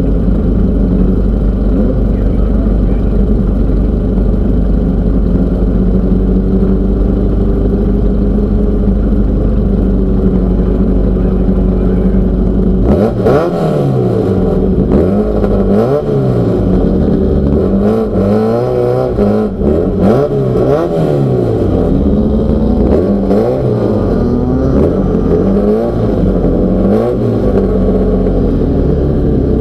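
Off-road race car engine running at a steady pitch. About halfway through it starts revving up and down over and over as the car accelerates and changes gear, with occasional knocks and rattles.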